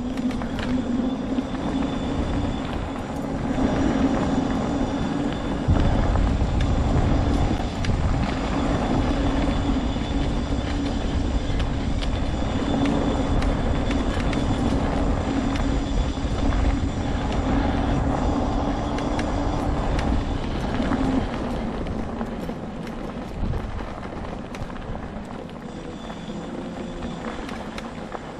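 Homemade all-wheel-drive electric mobility scooter on the move: a steady motor whine over a low rumble. The whine drops away about three-quarters of the way through, leaving a quieter rumble.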